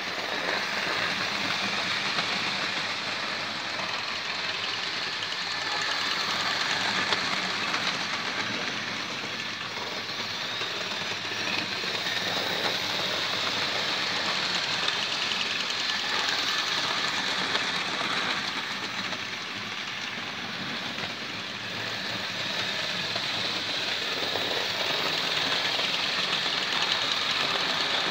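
Two Hornby 0-6-0 model locomotives running on the layout's track, pulling a rake of six wagons: a steady mechanical whir of small electric motors and wheels on the rails. It grows louder and softer as the train circles past.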